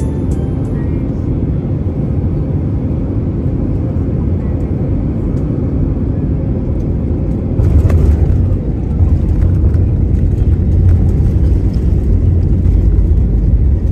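Airliner cabin noise during the landing roll: the jet engines and rushing air give a steady rumble. About eight seconds in it grows louder and deeper as the engines spool up in reverse thrust to slow the plane on the runway.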